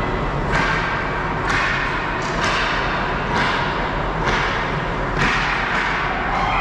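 Ice hockey play sounds in an arena: about seven sharp hits from sticks, puck and skates on the ice, each with an echoing tail, over a steady rink rumble.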